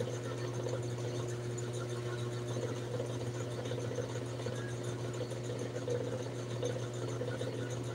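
A small motor's steady low hum, unchanging throughout.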